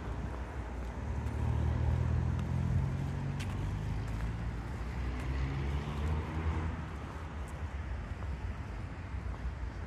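Road traffic: motor vehicle engines running on a nearby street, loudest from about one to three seconds in, with an engine's pitch rising around the middle.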